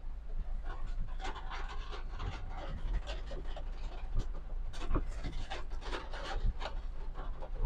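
Inside a small car's cabin driving over a rough, muddy, potholed road: a steady low engine and road drone with frequent clattering and creaking rattles from the body and interior as it jolts along.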